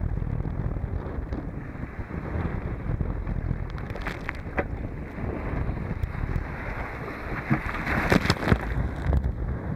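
Strong wind buffeting the microphone over choppy water splashing against a 12-foot kayak paddling into the waves. A splash about four seconds in, then a wave breaking over the bow near the end, the loudest part.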